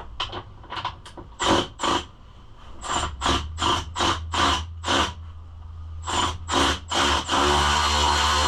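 A hand tool working a bolt on a pit bike in quick rasping strokes, about two or three a second. About a second before the end, a power tool's motor starts up and runs steadily.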